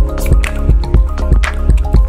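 Background music with a steady beat and a deep bass line.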